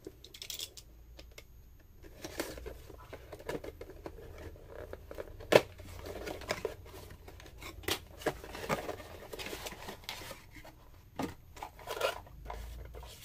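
A cardboard processor retail box being opened and its contents handled: packaging tearing and rustling, with scattered clicks and taps, the sharpest about five and a half seconds in.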